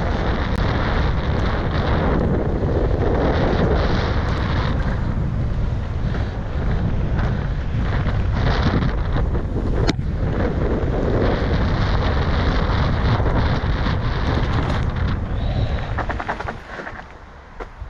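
Wind rushing over the microphone of a camera carried by a mountain biker riding a trail, with a steady low rumble, easing near the end.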